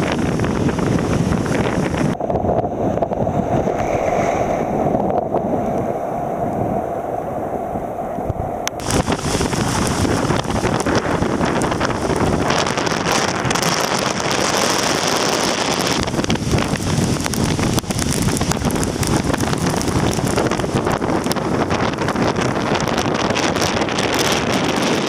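Strong typhoon wind buffeting the microphone over the rush of wind and sea water. About two seconds in, the hiss turns duller and more muffled for several seconds, then suddenly comes back full.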